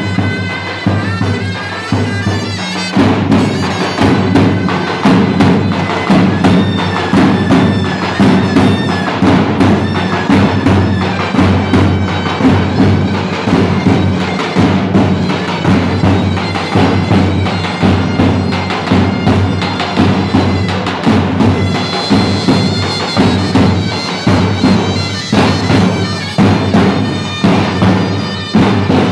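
Davul and zurna music: the zurna plays a shrill, reedy melody over the steady beating of two large davul drums. The drumming grows louder and busier about three seconds in.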